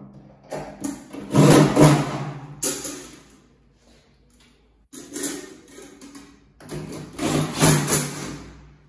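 A cordless power drill runs in three bursts of about two seconds each, with short pauses between them.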